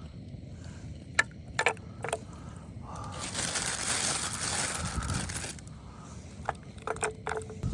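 A packet of dumplings being emptied into a cooking pot. A few sharp clicks come first, then a couple of seconds of rustling and rattling as they slide in, then more clicks near the end.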